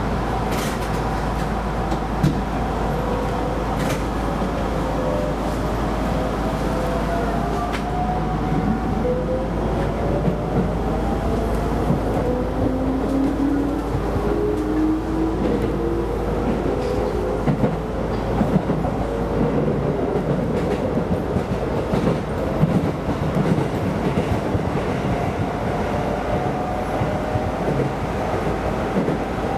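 Keisei Line electric train running on the rails, with wheel and track noise and scattered clicks from rail joints. Over it, the traction motors whine in several tones that slowly rise in pitch as the train gathers speed.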